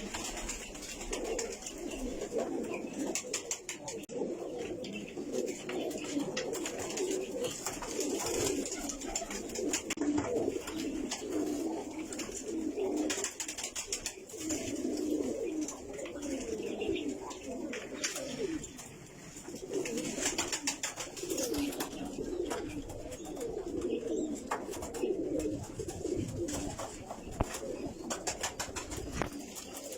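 Several domestic pigeons cooing continuously, their low calls overlapping, with scattered light clicks and rustling among them.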